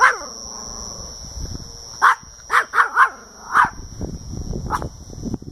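A small Chihuahua–rat terrier mix dog giving watchdog alarm barks: seven sharp barks, one right at the start and then a quick run of them between about two and five seconds in.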